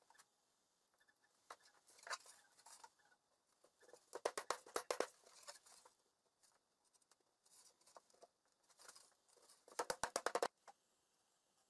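Chipboard furniture panels being handled and set onto glued wooden dowels: scattered knocks and scrapes, with two spells of rapid clattering clicks, about four seconds in and near the end.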